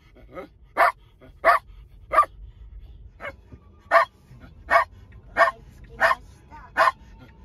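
A Shetland sheepdog barking over and over in a car's cabin: about ten sharp barks, roughly one every 0.7 seconds, over a faint low road rumble. The dog is excited by the snow and keeps barking on the drive.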